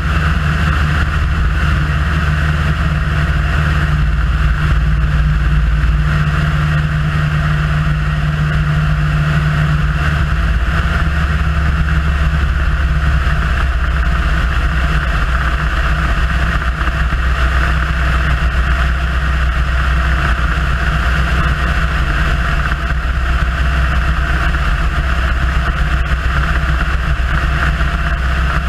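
Piper Super Cub in cruise flight: the engine and propeller drone steadily, heard from the tail with a constant rush of wind noise over the microphone.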